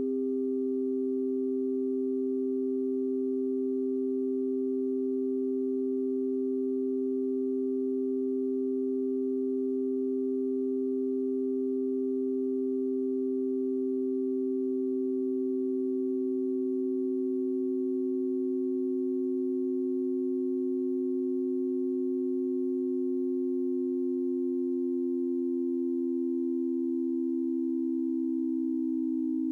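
Several synthesized sine tones sounding together in stereo: a steady low tone and a steady higher one hold, while two other tones slowly slide lower in pitch over the second half.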